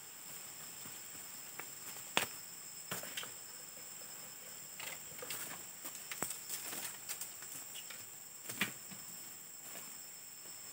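Steady high insect chirring in the forest, with scattered light clicks, taps and rustles.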